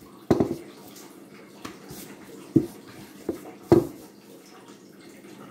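Rolling pin working dough on a stone countertop: a soft rolling rustle broken by several sharp knocks, the loudest right at the start and just before four seconds in.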